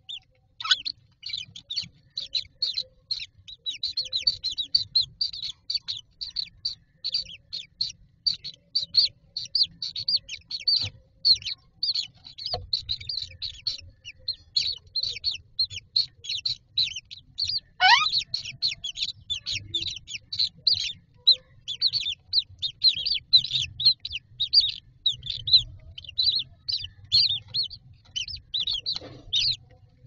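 Common myna nestlings begging: a rapid, continuous stream of short high-pitched chirps, several a second. A little past halfway comes one longer call that falls in pitch.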